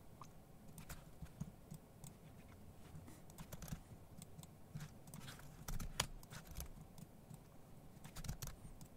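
Faint computer keyboard typing and mouse clicks: scattered, irregular taps, with one sharper click about six seconds in.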